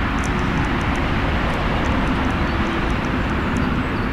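Steady outdoor rushing noise with a low rumble, even throughout, and a few faint high chirps over it.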